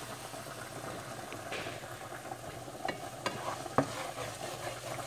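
Chicken pieces sizzling in a frying pan while a wooden spoon stirs them, with a few sharp knocks of the spoon against the pan in the second half.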